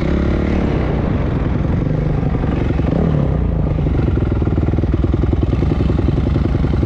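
Close-up dirt bike engine running steadily at low revs, with a regular low pulse.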